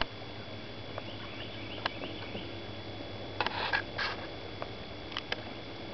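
Quiet outdoor ambience: a steady low hum under faint high chirps. A few sharp clicks and two short rustling bursts come about three and a half to four seconds in.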